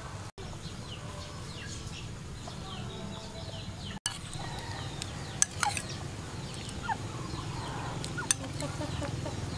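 Birds chirping in many short, quick calls over a steady low rumble, with a few sharp clinks of a metal spoon against a ceramic soup bowl around the middle and once near the end.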